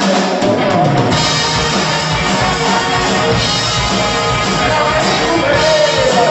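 Rock band playing, with drum kit, guitar and singing.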